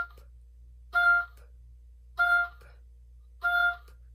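Oboe playing short detached notes, all on one pitch: the end of one, then three more, about one every second and a quarter. The gaps between notes are for little puff breaths, small exhalations of stale air between phrases.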